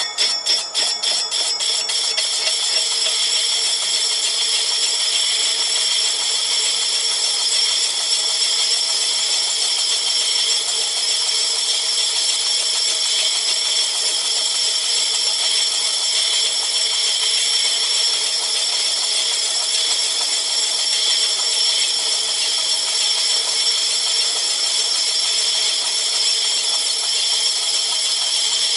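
Myford ML7 lathe turning a large flywheel casting on its faceplate, the tool cutting metal with a loud, steady, high-pitched scraping hiss. For the first couple of seconds the cut ticks about four or five times a second before settling into a continuous cut.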